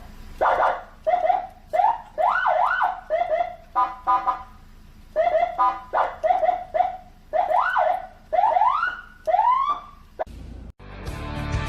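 Senken CJB100BD electronic vehicle siren giving a rapid series of short blasts, many of them sweeping up or down in pitch, with a brief alternating two-tone burst about four seconds in. Rock music comes in loudly about a second before the end.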